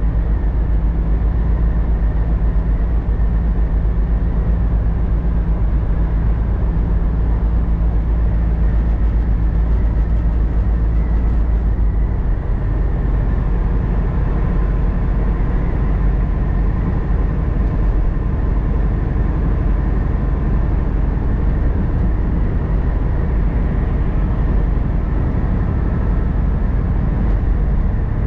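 Steady drone of a vehicle cruising at highway speed, heard from inside: a low engine hum under tyre and road noise. The low hum changes pitch slightly about twelve seconds in.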